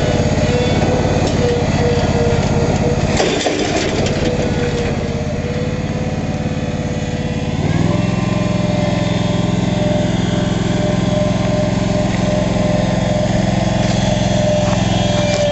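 Hustler zero-turn lawn mower with a 54-inch deck running steadily while mowing. About halfway through, the engine note steps up slightly and gets a little louder.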